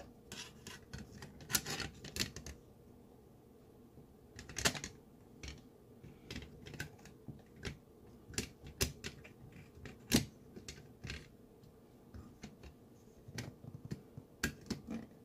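Irregular small clicks and taps, a few sharper than the rest, of an Ematic digital converter box's circuit board and wire connector being handled and fitted back into its metal case.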